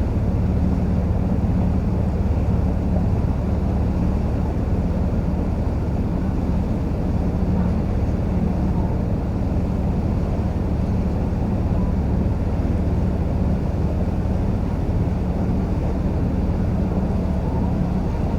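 Tour boat's engine running steadily while cruising, a constant low hum with a wash of water and air noise over it.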